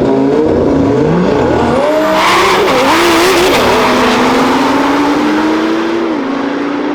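An Audi RS3 and a Lamborghini racing in a drag race, engines revving hard and rising and falling in pitch, with a loud rush of noise about two seconds in as they accelerate away. After that one engine note holds steady and drops a step in pitch.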